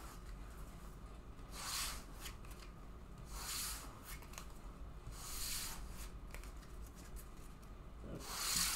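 Trading cards being slid across the table and picked up: four brief papery swishes about two seconds apart, the last the loudest.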